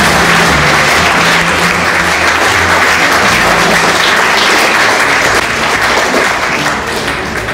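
Audience applauding, the clapping dying down near the end, with music playing underneath.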